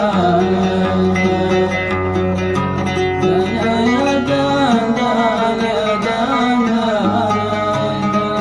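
Oud being plucked while a man sings a slow, ornamented Yemeni dan melody, his voice gliding and bending between notes.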